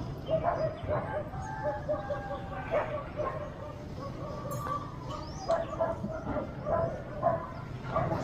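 A dog barking over and over in short barks.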